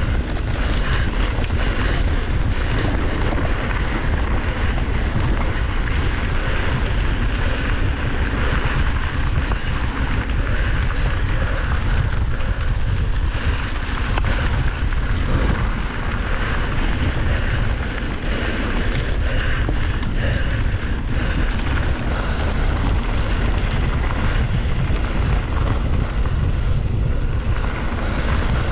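Heavy wind buffeting the microphone, with a steady rattle and crunch of tyres on rough, loose trail, as from a mountain bike ridden fast downhill.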